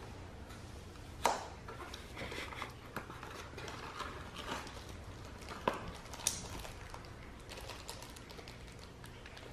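Wrapping paper crinkling and tearing as a small present is unwrapped by hand, with a few sharp taps, the loudest about a second in and twice around six seconds.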